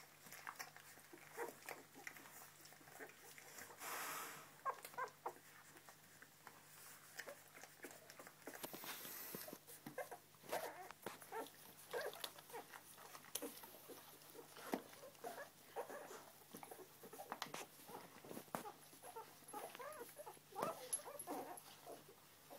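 Faint squeaks and whimpers from a litter of young springer spaniel puppies nursing on their mother, among many small clicks and rustles.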